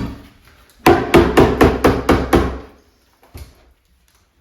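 Hammer blows during demolition work: one sharp strike, then a rapid run of about eight strikes, and a lighter single knock near the end.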